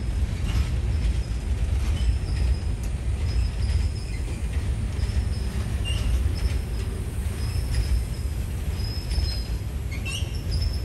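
Freight train cars rolling past at close range: a steady low rumble of steel wheels on rail, with a few faint clicks and scattered brief high squeaks.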